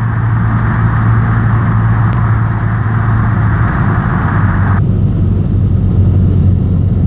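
Cessna 172N's four-cylinder engine and propeller droning steadily in the cockpit during the landing approach, with a layer of hiss that cuts off abruptly about five seconds in.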